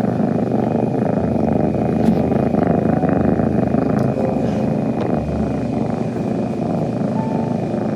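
Tuxedo kitten purring loudly and steadily, a continuous low rumbling purr.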